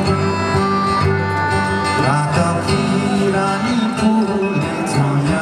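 Live acoustic band music: an acoustic guitar strummed under a man's singing, with other stringed instruments playing along.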